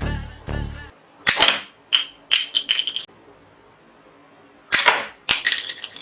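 Plastic toy guns clicking and cracking in several quick bursts, some of them rapid runs of clicks like a toy firing. Before these, a steady beat-like sound stops about a second in.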